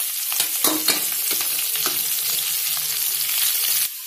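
Freshly added shredded cabbage and carrot sizzling in hot oil in a steel kadai, a steady hiss broken by frequent clicks and scrapes as they are stirred against the pan. The sizzle breaks off abruptly just before the end.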